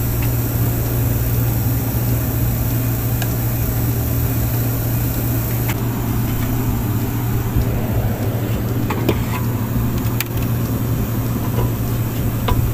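Steady low mechanical hum of running air-conditioning machinery, with a few faint clicks scattered through it.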